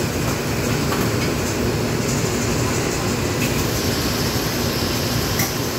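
Commercial wok range running: a steady, low rushing noise of the gas wok burner and kitchen extraction. A few light clicks of a metal ladle against the wok sound over it, the clearest near the end.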